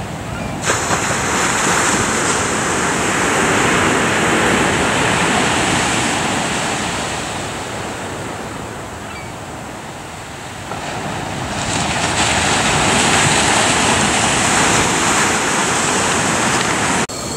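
Small ocean waves breaking and washing up a sandy beach. The surf swells about a second in, eases to a lull near the middle, then builds again.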